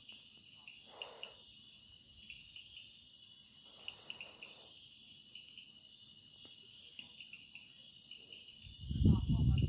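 A chorus of crickets chirping steadily in a dense, high-pitched trill. About nine seconds in, a louder low rumble comes in briefly.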